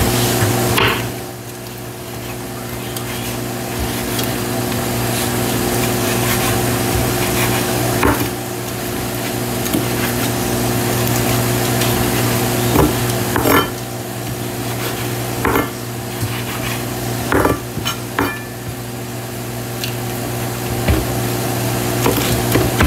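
Bacon sizzling in a frying pan, with a handful of sharp clicks and knocks of a utensil against the pan.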